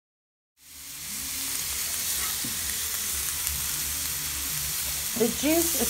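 T-bone steak sizzling in a hot non-stick grill pan, a steady frying hiss that starts abruptly about half a second in after a silent gap. A voice begins near the end.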